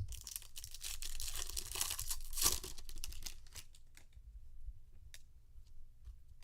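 Foil wrapper of a Topps Chrome trading card pack being torn open and crinkled, loudest about two and a half seconds in. It is followed by light scattered clicks as the cards are handled.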